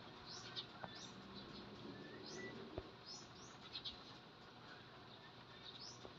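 Faint bird chirps: short, quick rising calls repeated irregularly, with a single soft tap about halfway through.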